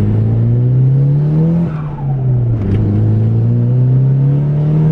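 Turbocharged Nissan S13 engine accelerating hard under boost, its pitch climbing through one gear. It drops at a gear change about two seconds in, then climbs again through the next gear.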